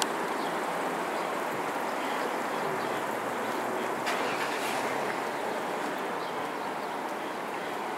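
Steady outdoor traffic noise, an even rush with no single engine standing out, and a few faint ticks.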